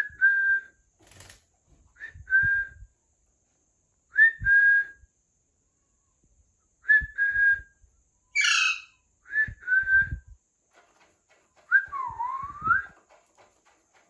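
Short whistled notes, each a quick slide up onto a steady tone, repeated every two seconds or so. Near the end comes a longer whistle that dips and climbs back up. About eight and a half seconds in there is a harsher chirping call from a baby Alexandrine parakeet.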